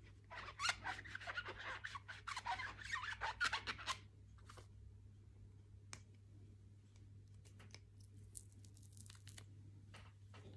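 Ink-covered stamps on a clear acrylic stamping block being scrubbed clean with quick, scratchy rubbing strokes for about three seconds, followed by quieter handling with a few scattered light clicks and rustles.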